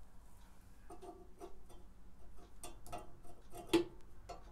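Irregular light clicks and ticks of a screwdriver working on metal at the burner access plate of a Suburban NT-30SP RV furnace, with one louder click near the end.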